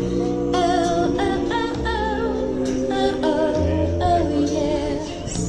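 Background music: a song with a sung vocal line over sustained instrumental accompaniment.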